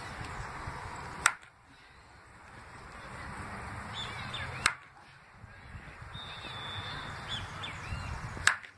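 Baseball bat hitting tossed balls: three sharp cracks about three and a half seconds apart.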